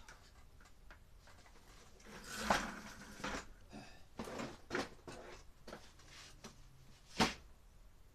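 Handling noise of items being moved and set down in a lidded box with latches: a clatter about two and a half seconds in, a few smaller knocks, and one sharp knock near the end.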